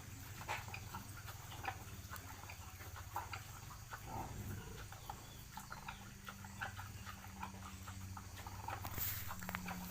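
A pig moving about its pen, making irregular soft clicks and knocks over a steady low hum.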